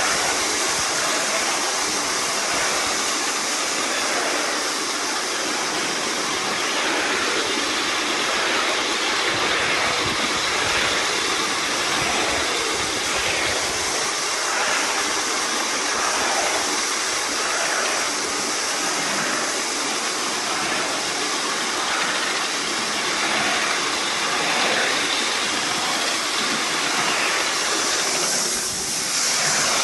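A 3½-inch gauge Heilan Lassie live-steam model locomotive running: a steady rushing hiss of steam and exhaust with faint recurring beats, along with the clatter of its wheels on the track.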